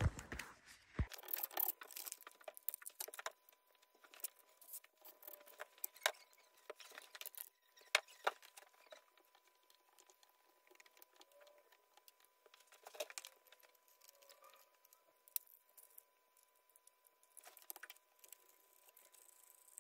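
Faint, scattered clicks, taps and short plastic rustles from a replacement EPH heating programmer being handled and fitted to its wall plate, with quiet gaps between them and a faint steady tone underneath.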